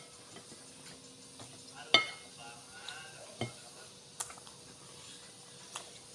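A few sharp clinks of tableware against a plate during a meal. The loudest comes about two seconds in and rings briefly; lighter taps follow over the next few seconds.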